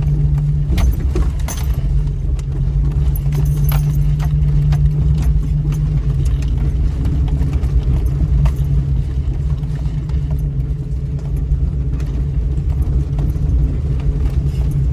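A 2000 Jeep Cherokee crawling slowly over a rough, rocky trail: a steady low engine drone with constant rattling, clinking and knocking as the vehicle jolts over the rocks.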